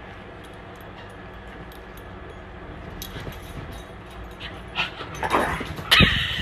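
A dog whimpering, beginning about three seconds in over a low steady hum, and ending in a loud yip near the end.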